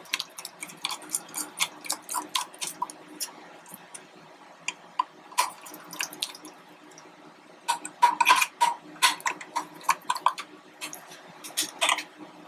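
Irregular light metallic clicks and taps of a Phillips screwdriver working the screws that hold the X-axis motor of a laser engraver gantry, with a cluster of louder clicks about eight seconds in.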